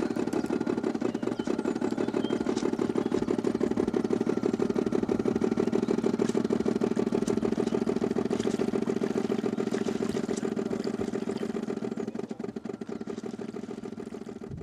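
Steady, fast chugging engine-like running from a radio-controlled model fishing boat, fading away over the last two seconds or so.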